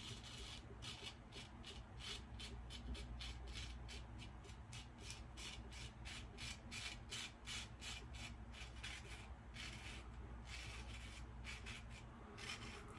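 Single-edge safety razor with a GEM blade shaving through lathered stubble in quick repeated strokes: a run of short rasping scrapes, several a second.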